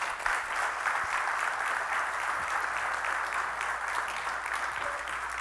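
Church congregation applauding, a steady dense clapping that begins right after the sermon ends and tapers off slowly near the end.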